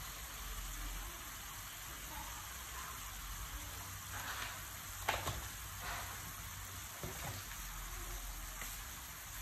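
Chopped pickled mustard greens frying in oil in a pan, a steady sizzle, with a few light clicks midway.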